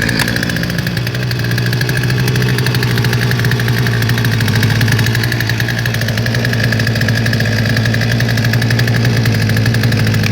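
Poulan two-stroke chainsaw, just started from cold, idling steadily, its speed rising slightly about a second in; it runs smoothly.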